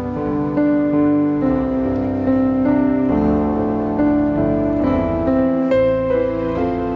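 Slow, gentle piano music on an electric keyboard: held chords under a melody that changes note about once a second.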